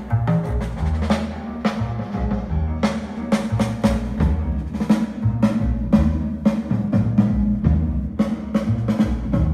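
Drum-heavy music with deep bass notes played through a DIY electrostatic loudspeaker with an open-baffle woofer, with regular drum hits several times a second.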